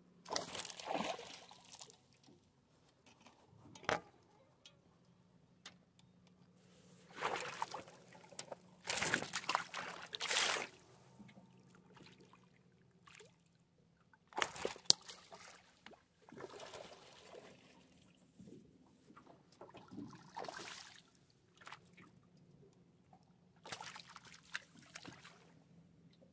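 A hooked smallmouth bass splashing and thrashing at the water's surface beside the boat as it is played on the line, in irregular bursts of splashing with quieter stretches between. There is one sharp knock about fifteen seconds in.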